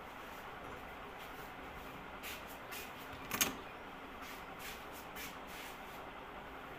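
A barber's hands working during a head and shoulder massage: a few short, soft taps over steady room noise, the sharpest and loudest about three and a half seconds in.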